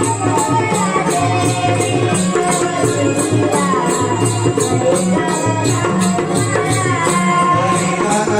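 Naman folk music: a dholki drum beat under a steady patter of small cymbals or jingles, with a sustained melody running over it.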